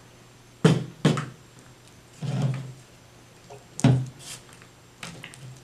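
Homemade slime being slapped, pressed and squished against a tabletop by hand: two sharp slaps about half a second apart, a longer wet squelch, another sharp slap a little before four seconds in, then softer squishing.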